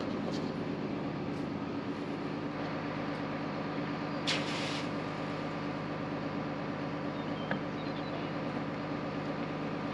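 Steady low mechanical hum holding a few fixed pitches, with a brief hiss about four seconds in.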